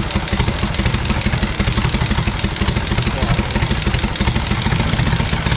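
Vintage V-twin motorcycle engine idling steadily with an even, fast firing beat.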